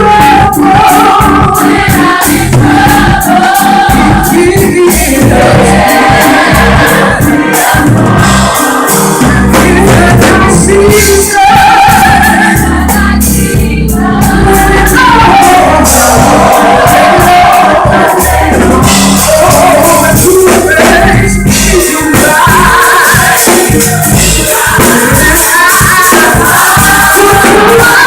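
Live gospel music: a vocal group singing in harmony over a band, with a steady drum beat and bass underneath.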